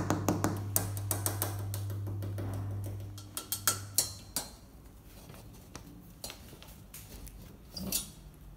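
Clinks and knocks of boltless steel rack parts and HDF shelf boards being handled: a quick run of small clicks at the start, a few sharper knocks about four seconds in, and a brief scrape near the end.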